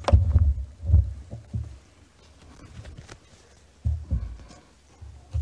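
Irregular low thumps and knocks picked up by a live microphone, a cluster in the first second and a half and another about four seconds in. This is typical handling noise from a desk microphone being adjusted before a speaker begins.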